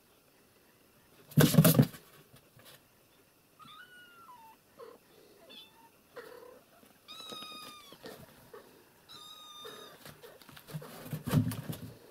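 Cats meowing: several high-pitched meows, each short and falling in pitch, the longest about eight seconds in. Two loud bursts of rustling and scrabbling come about a second and a half in and again near the end.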